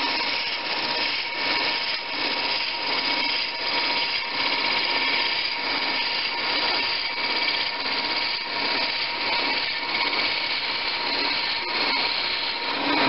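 Wood lathe running while a 1 3/8-inch spiral drill bit in the tailstock chuck bores into the end grain of a spinning blank of very hard, oily wood: a steady grinding, rasping cut with a faint whine underneath. Drilling along the grain of such hard wood is slow, laboured work. The sound grows louder near the end.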